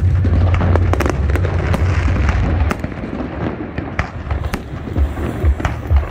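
Fireworks display going off: a dense low rumble of booms with many sharp crackling pops on top. The rumble eases about halfway through, leaving scattered pops and bangs.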